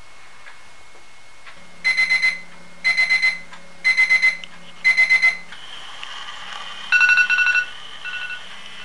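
Alarm going off while he sleeps: four rounds of four quick, high beeps, about one round a second. Then the pattern changes to a different, higher ringing alarm tone with bursts of rapid chirps.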